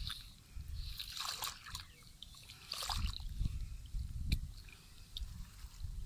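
Hands scooping and splashing in shallow muddy water, in a few short bouts, with water trickling.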